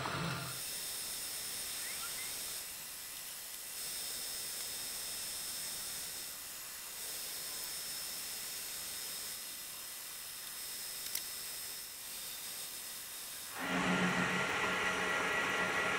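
Metal lathe running with its chuck spinning, a steady hiss with faint high tones. About three-quarters of the way through, a drill in the tailstock bites into the spinning metal workpiece and a louder, pitched cutting sound sets in.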